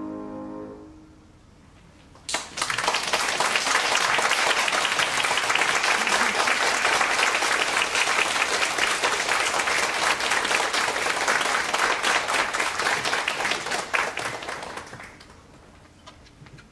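The last piano chord dies away, then after a short pause an audience breaks into applause, clapping steadily for about twelve seconds before it fades out near the end.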